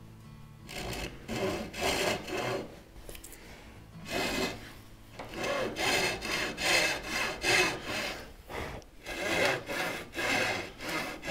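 A hand back saw cuts across a thin wooden stringer to form a notch, with rasping push-pull strokes about two a second. The strokes come in runs with two short pauses.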